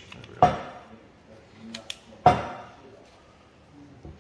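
Two sharp metallic clanks about two seconds apart, each ringing briefly, with a couple of light clicks between: steel hydraulic-cylinder parts knocking together as the piston is worked onto the ram by hand.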